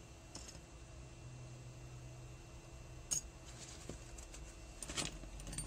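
A few light metallic clicks and clinks as small steel gearbox parts and shims are handled on an AM6 engine's gear shafts, the sharpest about three seconds in and a small cluster near the end.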